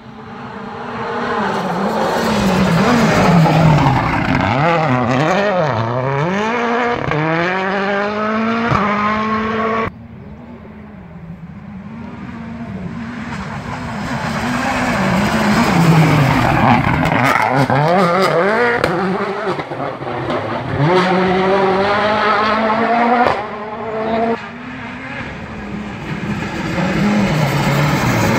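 Rally car engines at full throttle on a gravel stage, the revs climbing and dropping repeatedly through gear changes and lifts as each car approaches and passes. The sound breaks off suddenly about ten seconds in and changes again after about twenty-three seconds, as one pass is cut to the next.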